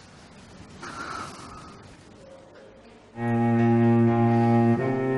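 Faint background hiss, then about three seconds in a dramatic background score of low bowed strings, cello and double bass, enters with long held chords. The chord shifts near the end.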